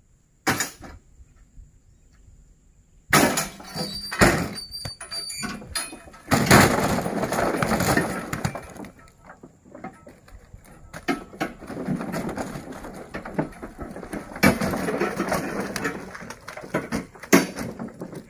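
Oil palm fruit bunches being unloaded from a pickup bed and dropped onto a heap: irregular heavy thuds and crashes as the bunches land. After a quieter first three seconds with a single knock, the impacts come thick and fast.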